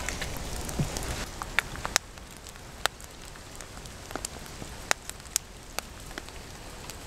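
Irregular sharp crackles and pops from a small wood-burning camp stove with an oiled carbon-steel pan heating on top, as the pan's seasoning gets under way.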